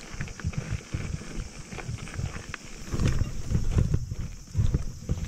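Giant Anthem full-suspension mountain bike ridden over rocks, rattling and knocking with irregular thumps and clicks.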